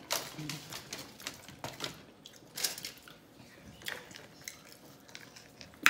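Close-up eating sounds of someone chewing a burrito: scattered short, wet clicks and smacks of the mouth.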